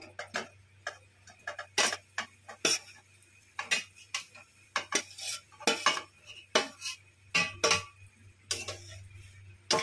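Metal spoon scraping and clinking against a steel bowl and a metal kadhai as crumbled khoya is scraped out of the bowl into the pan: irregular sharp clinks and scrapes, one or two a second, over a faint steady low hum.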